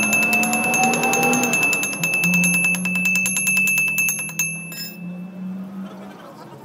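Fast, even tapping of a hammer and chipping tool on the weld bead of a steel gear, knocking off slag, with the gear ringing at a steady high pitch. The tapping stops about four and a half seconds in, followed by a short scrape.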